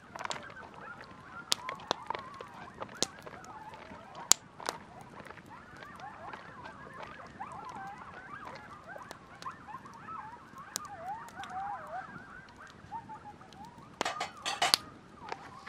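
A pack of coyotes howling and yipping pretty close by, many wavering, sliding calls overlapping into a racket. Scattered sharp clicks run through it, with a louder cluster near the end.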